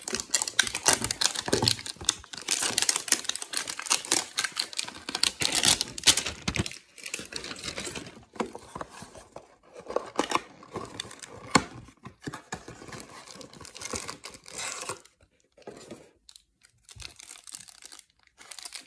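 Cardboard Select basketball-card hanger box being torn open and its wrapper crinkled: a dense run of tearing and crackling for the first several seconds, then scattered crinkles and clicks as the cards are pulled out, thinning out near the end.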